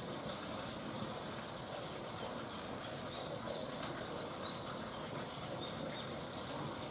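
Steady outdoor background noise with a few short, faint bird chirps scattered through it.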